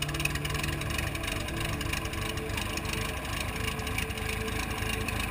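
Piper L-4J's 90-horsepower Continental four-cylinder aircraft engine running steadily at idle.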